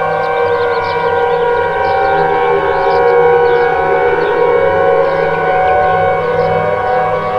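Outdoor tornado warning sirens wailing, several steady tones layered together while one slowly falls in pitch.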